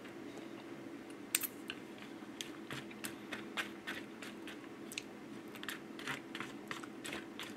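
Faint, irregular clicking and ticking as natto is eaten: wooden chopsticks working the sticky beans in a foam tray, with chewing, over a steady low hum.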